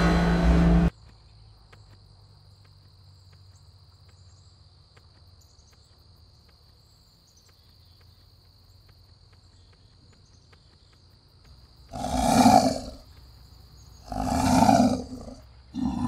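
A tiger roaring twice, each roar about a second long, about 12 and 14 seconds in, with a third roar starting at the very end. Before that, a loud intro sound cuts off about a second in, followed by faint quiet with a thin steady hiss tone.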